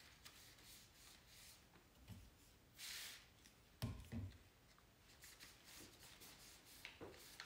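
Soft rustling of a cloth wiping fiddle leaf fig leaves, with one short hiss from a spray bottle misting the leaves about three seconds in. Just after, two light knocks come as the bottle is set down on the marble countertop.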